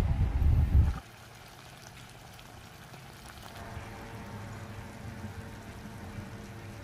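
Pork bulgogi with onions simmering in its marinade in a frying pan on a portable gas burner: a steady, faint bubbling of liquid. For about the first second a loud low rumble of wind on the microphone covers it, then cuts off.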